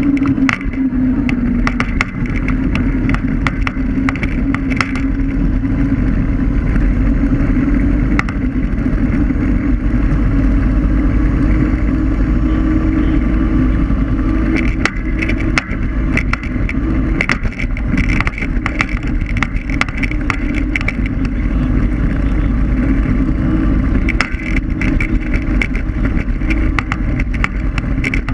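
Riding noise of an electric scooter heard from a camera mounted low on it: a loud steady rumble of tyres on asphalt and wind, with a steady low hum. Frequent sharp rattles and knocks from bumps in the pavement come in clusters, most in the first few seconds and through the second half.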